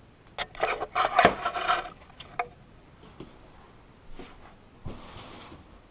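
Handling noise: rubbing, scraping and clicks for about two seconds, then a few separate knocks and a thump near the end.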